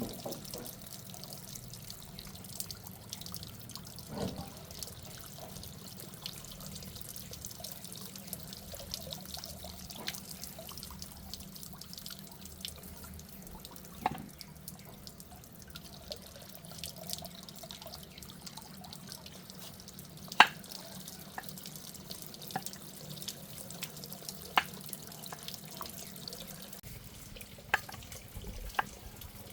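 Water running and dripping steadily, with scattered sharp clicks and knocks, the loudest about two-thirds of the way through.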